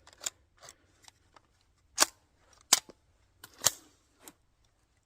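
Sharp mechanical clicks and clacks from handling a 3D-printed MAC-11-style 9mm pistol after a failure to feed, as the action and upper are worked and checked for looseness. There are several separate clicks, three louder ones spaced less than a second apart.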